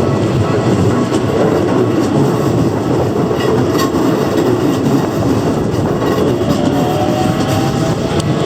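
Keikyu electric train passing close by over a level crossing: a steady loud rumble of wheels on the rails, with scattered clicks from the wheels over rail joints and a faint rising whine near the end.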